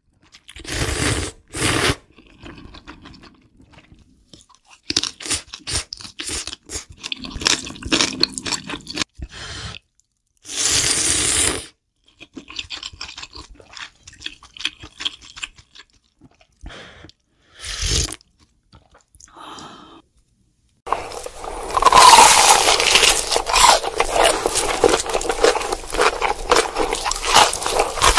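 Crunching and scraping in short bursts as a glazed rack of barbecued pork ribs is handled and sliced on a wooden cutting board. From about 21 seconds in, a louder, dense stretch of crackly noise takes over.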